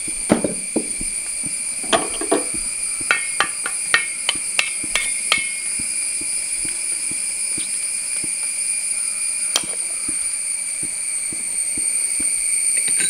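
Wooden spatula knocking and clacking against a brass uruli as shallots are stirred in hot coconut oil: a quick run of sharp knocks between about two and five seconds in, and a single one later. A steady high-pitched whine runs underneath.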